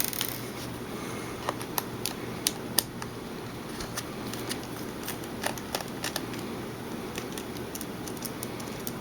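Light, irregular clicks and ticks of small screws being worked out of an Olympus SP-600UZ camera's plastic body with a precision screwdriver, coming in clusters, over a steady low hum.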